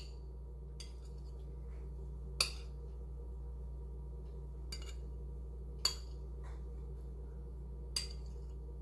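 Metal spoon clinking against a glass plate while food is served onto it and scooped, about five sharp clinks a second or two apart.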